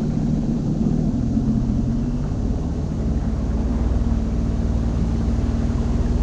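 Sea-Doo personal watercraft engine running steadily at a low, even pitch with a deep rumble.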